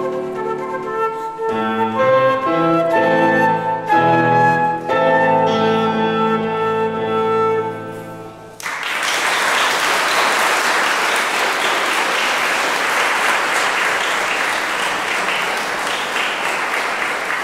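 Flute and piano playing the closing bars of a piece, the final notes dying away about eight seconds in. Then the audience applauds steadily.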